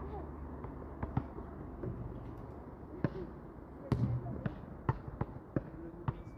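Basketballs bouncing on a court: irregular sharp thuds, about a dozen, the loudest about four seconds in, over a steady background hiss.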